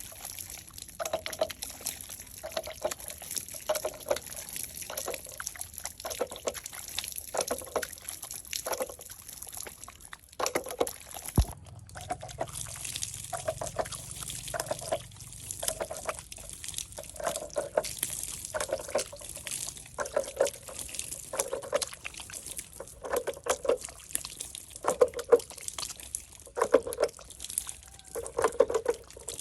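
Water sloshing and trickling, with a short splash repeating about once a second.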